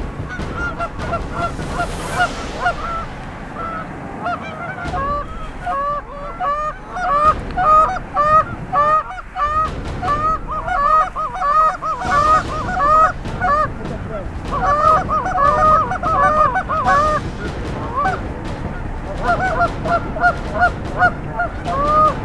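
A flock of Canada geese honking, many short calls overlapping in quick succession. The calling thins briefly about three-quarters of the way through, then picks up again.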